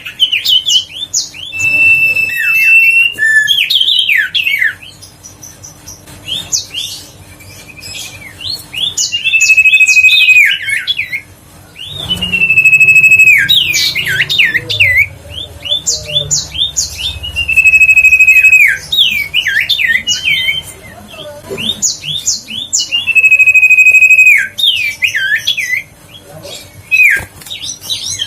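Common iora singing over and over: each phrase is a long steady whistle that drops at its end, followed by a quick run of chattering, sliding notes.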